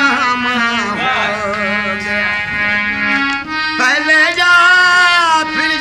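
A man singing a South Asian folk song with a wavering voice over a hand-pumped harmonium holding steady reed chords. The voice drops out in the middle, leaving only the harmonium, and comes back about four seconds in with long held high notes.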